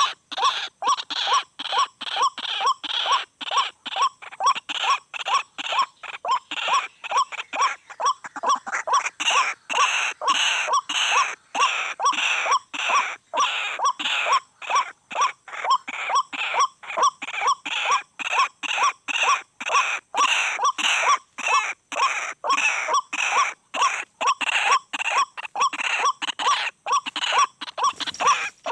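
White-breasted waterhen calls: a steady run of short, harsh notes repeated about two a second without a break.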